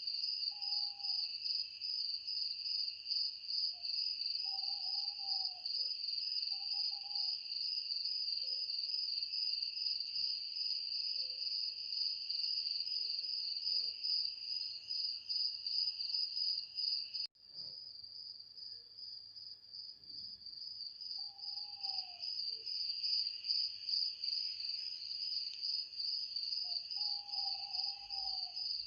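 Crickets chirring in a steady, finely pulsing high chorus, with a few short, lower calls from another animal bending downward in pitch at intervals. About seventeen seconds in the sound cuts out for an instant, and the chorus comes back thinner before filling out again.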